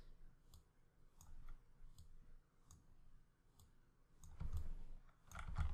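Faint computer mouse button clicks, about one every 0.7 seconds, as mesh edges are selected one by one. A cluster of louder, duller knocks comes near the end.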